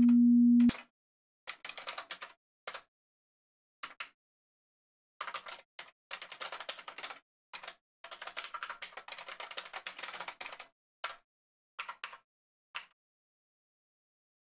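A steady 240 Hz sine tone from a software synth's oscillator cuts off abruptly under a second in. Computer keyboard typing follows in irregular bursts of keystrokes, busiest in the middle, with short silences between the bursts.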